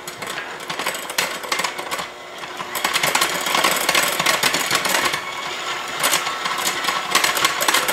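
KitchenAid electric hand mixer running, its wire beaters whisking egg yolks and vanilla in a glass bowl with a dense rattle that dips briefly about two seconds in.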